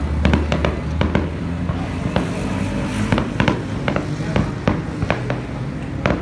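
Aerial fireworks display: a quick, irregular string of sharp bangs and crackles from bursting shells, several a second, over a low steady rumble.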